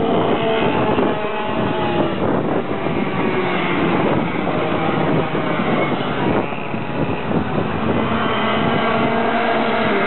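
Racing kart engines buzzing as karts lap the track and pass close by, the pitch falling as one goes past near the start and rising and falling again near the end.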